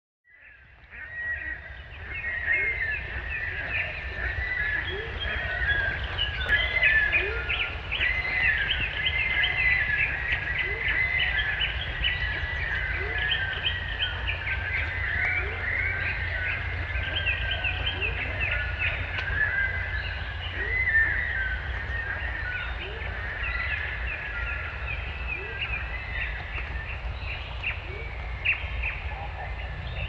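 Many small birds chirping and twittering together in a dense, continuous chorus, over a steady low rumble.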